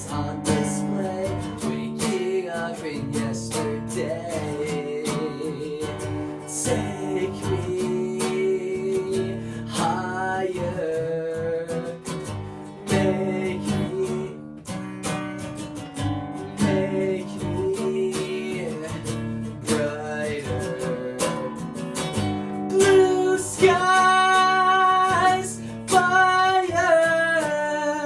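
Acoustic guitar strummed and picked in a song, with a singing voice coming in over it in places, most clearly in the last few seconds.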